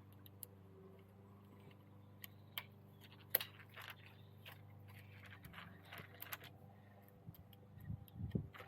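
Faint small metallic clicks and scrapes of a hex key working the tiny battery-cover screws out of a crank-mounted power meter. The ticks are scattered and come thickest in the middle, with a couple of soft knocks near the end.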